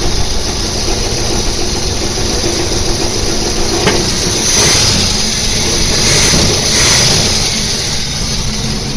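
Volkswagen car engine running just after a cold start, steady, growing louder twice around the middle.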